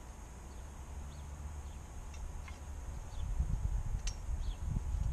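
Low, uneven wind rumble on the microphone, growing louder about three seconds in, with a few faint bird chirps and one small click.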